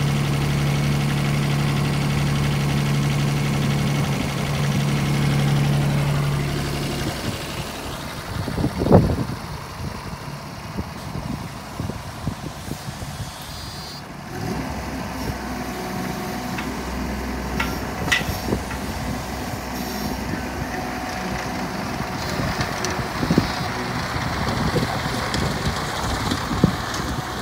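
JCB 18Z-1 mini excavator's diesel engine idling steadily close up, then the hum drops away about seven seconds in. A sharp knock follows about two seconds later, and the rest is quieter outdoor noise with scattered small clicks.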